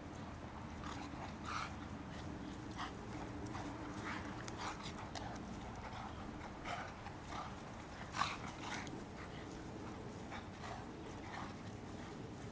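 Two golden retrievers play-fighting: a string of short, sharp dog noises and scuffles as they wrestle, the loudest about eight seconds in.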